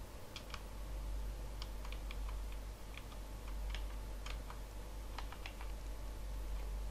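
Irregular light clicks of a computer keyboard and mouse being worked, a few at a time with short gaps, over a steady low hum.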